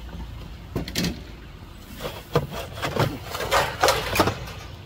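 Handling noise from a handheld phone camera being moved about: a handful of irregular light knocks and rubs.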